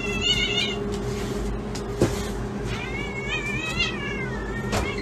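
Kitten meowing: a high, wavering cry that ends within the first second, then a longer one of about a second and a half in the middle. A light knock comes near 2 s and another near the end.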